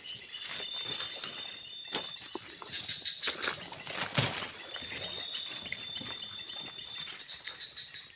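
Steady high-pitched chorus of night insects, with irregular rustles and snaps of leaves and twigs as someone pushes through undergrowth; one snap about four seconds in is louder than the rest.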